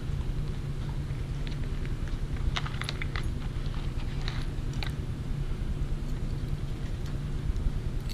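Small clicks and rattles of a dog's collar and a clear plastic e-collar cone being handled as the collar is threaded through the cone's loops, clustered about two and a half to five seconds in. A steady low hum runs underneath.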